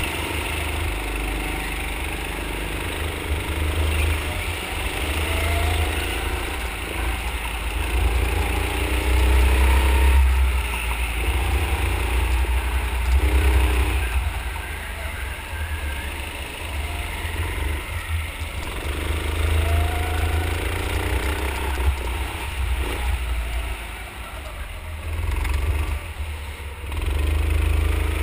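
Go-kart motor heard from the onboard camera through a lap, its pitch rising and falling again and again as the kart speeds up and slows, over a heavy low rumble.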